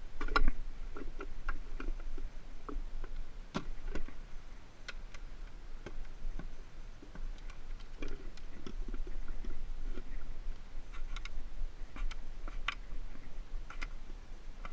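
Irregular clicks and light knocks from hands working a black rubber plug on a small chain inside a fibreglass boat storage compartment, with a faint steady low hum underneath.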